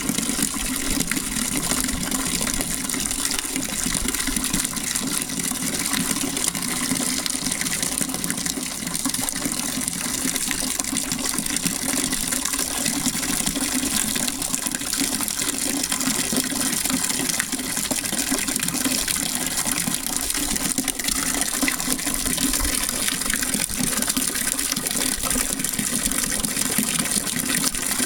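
Water running and splashing down an ice-encrusted garden fountain: a steady pouring and trickling sound.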